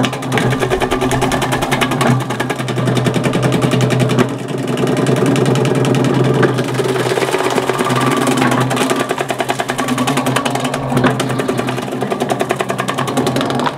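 Background music with a steady beat, over the low, steady hum of an electric potato shredder running as potatoes are cut into matchsticks.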